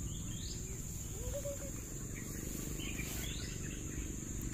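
Outdoor insect and bird ambience: a steady high-pitched insect drone, with a bird's short rising chirps a few times, over a low rumbling noise.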